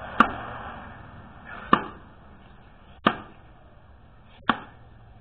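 Axe chopping into a log: four sharp strikes, evenly spaced about a second and a half apart.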